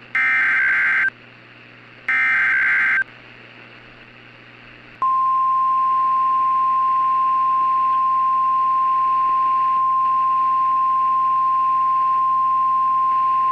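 Emergency Alert System SAME header on NOAA Weather Radio: the last two of three one-second bursts of screeching digital data tones, a second apart. About five seconds in, a steady single-pitch 1050 Hz warning alarm tone starts and holds, signalling that an emergency message follows.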